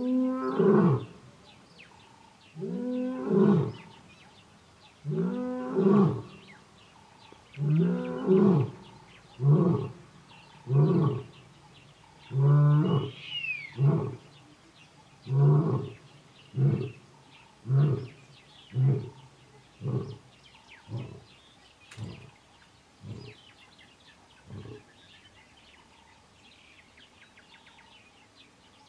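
Male lion roaring a full bout: a few long, deep moaning roars, then a run of shorter grunts that come closer together and fade away, ending about 25 seconds in. He is calling to his coalition brothers.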